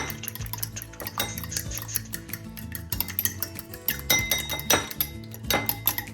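Eggs being beaten in a bowl: a metal utensil clicking and clinking rapidly and irregularly against the bowl, over background music.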